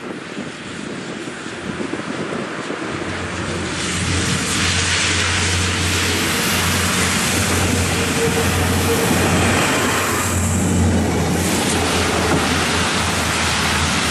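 Jenbacher diesel railcar approaching and passing close by: a steady low engine drone under the rush of wheels on rail. It grows loud about four seconds in and stays loud as the railcar goes past.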